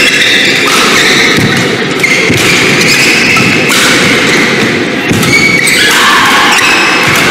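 Badminton rally: rackets hitting the shuttlecock with sharp strikes, and players' shoes thudding and squeaking on the court floor, with the echo of a large hall.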